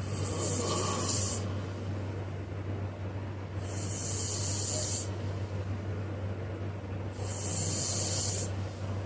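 A sleeping man snoring: three hissing breaths, about three and a half seconds apart, over a steady low hum.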